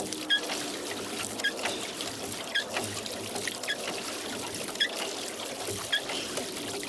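Rowboat being rowed: water trickling off the oars, with a short squeak repeating about once a second in time with the strokes.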